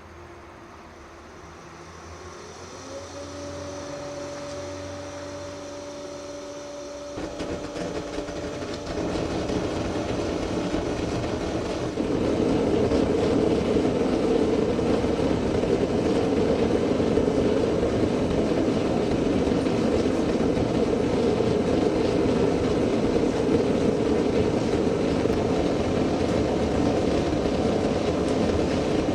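Homemade fire-extinguisher furnace's blower spinning up with a rising hum, then a steady roar that comes in about a quarter of the way through and grows louder at about 12 s as the blower-fed gas flame fires the furnace.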